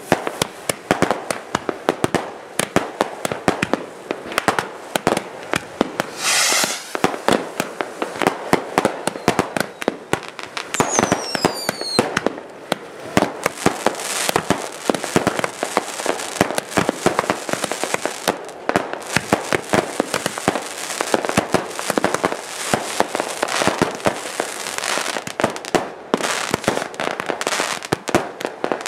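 Firework batteries going off in rapid succession: a dense stream of bangs and crackling, with a hissing whoosh about six seconds in and a whistle falling in pitch a little before halfway.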